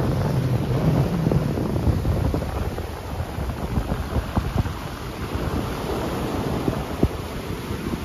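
Sea waves breaking and washing over sand and flat rocks in a steady wash of surf, with wind buffeting the microphone in gusts that rumble underneath.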